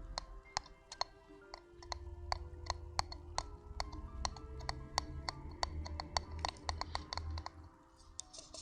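Crisp close-miked taps and clicks, about three or four a second, over soft music with held notes.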